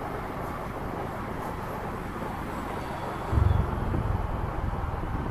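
Motorcycle riding noise in city traffic: a steady rush of wind and road noise, with a louder low rumble coming in about three seconds in.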